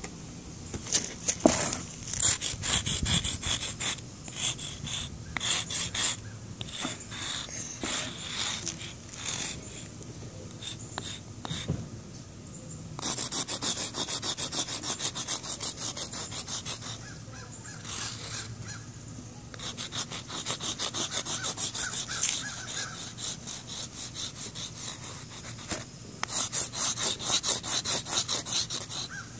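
Crayola sidewalk chalk scraping across rough concrete in runs of quick back-and-forth strokes, several a second, with short pauses between runs.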